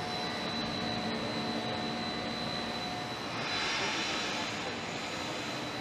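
Blown film extrusion line machinery running: a steady mechanical drone and hiss with a thin, high, steady whine. The hiss swells for about a second a little past the middle.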